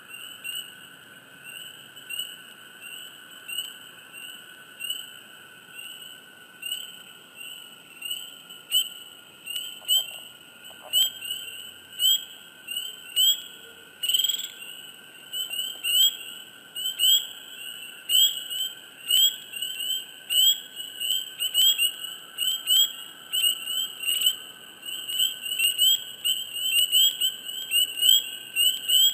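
Chorus of spring peepers: short rising peeps repeat over and over and come faster and denser toward the end, over a steady lower trill.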